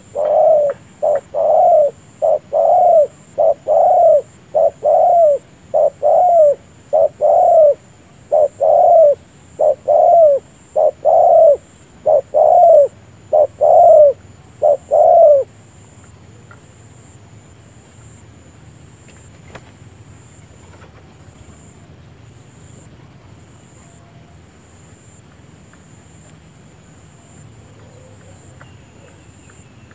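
Spotted dove cooing close by: a rapid, even run of short rising-and-falling coos, about one and a half a second, that stops about halfway through, leaving only faint background.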